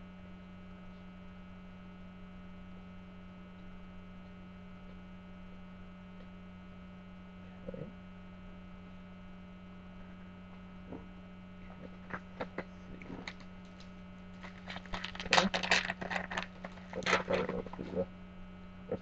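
Steady mains hum throughout, with a run of crackling rustles in the second half as foil trading-card pack wrappers and cards are handled, most of it packed into a few seconds near the end.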